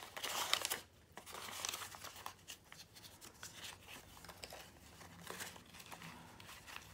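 Paper dollar bills rustling and crinkling as a stack of cash is shuffled and counted by hand, a run of soft, crisp rustles.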